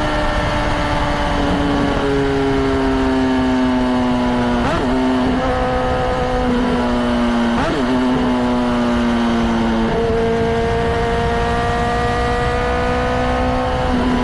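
Honda CBR600RR's inline-four engine running steadily, its pitch slowly sagging and stepping back up a couple of times, with short breaks about five and eight seconds in.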